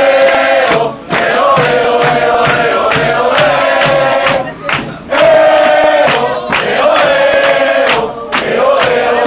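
A crowd of football supporters singing a chant together in unison, loud and sustained in repeated phrases, with hand claps keeping time.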